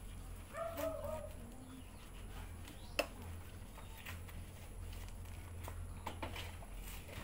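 A dog whimpering briefly about a second in, a short whine that bends in pitch. A single sharp click comes about three seconds in, over a steady low hum.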